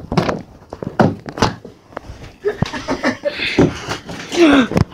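A string of knocks, taps and thumps from the camera being handled and moved about, with a few short squeaky sounds and a brief rustling hiss about three seconds in.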